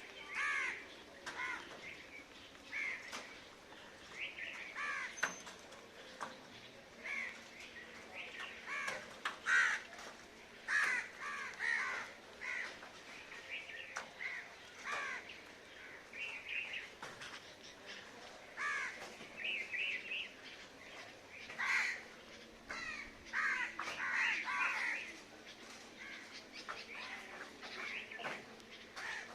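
Several crows cawing again and again, their calls overlapping at irregular intervals.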